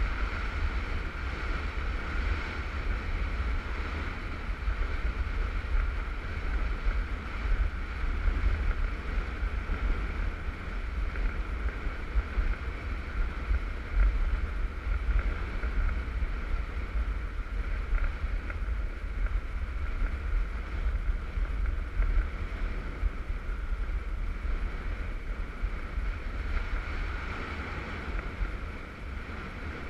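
Wind rushing over the microphone of a skier moving down a groomed piste, with the steady hiss and scrape of skis sliding on snow.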